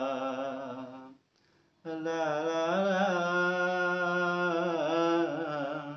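A man singing unaccompanied in Hindi. He holds a long wavering note on "ho" that dies away about a second in, takes a short breath, then holds a second long wordless note with a wavering pitch for about four seconds.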